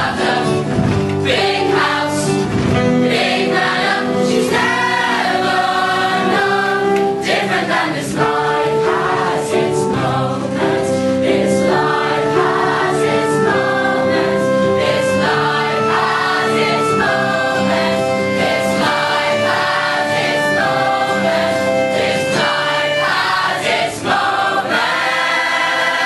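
Stage-musical cast of men and women singing together as a chorus, holding long notes.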